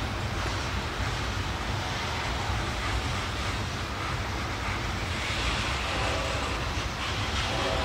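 Loaded garbage train of trash containers on flatcars rolling past: a steady rumble and hiss of freight car wheels on the rails. The hiss grows brighter about five seconds in.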